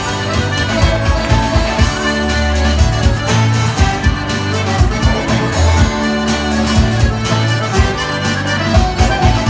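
Live band playing a tune, an accordion carrying the melody over bass and drums.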